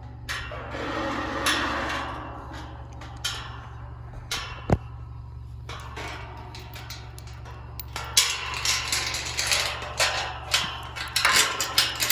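A gate being shut and fastened: scattered metallic knocks, one sharp ringing clank about halfway through, then a dense run of rattling clatter near the end.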